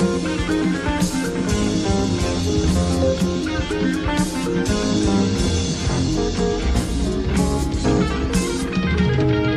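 Live rock-jazz fusion band playing instrumental music: electric guitar to the fore over bass guitar, drums and keyboards, continuous and loud.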